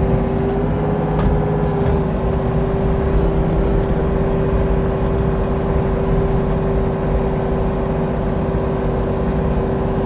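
Diesel engine of a compact earthmoving machine running steadily at working speed, a loud drone with a steady humming tone over it.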